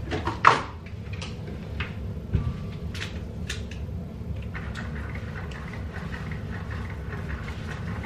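Kitchen counter sounds: a series of clicks and knocks as things are handled, the loudest about half a second in, over a steady low hum. A steady whir of a small appliance joins about halfway through.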